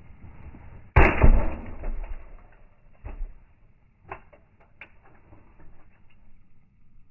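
A single heavy axe blow splitting a log of firewood about a second in, with a second of cracking as the wood gives way, followed by three lighter wooden knocks.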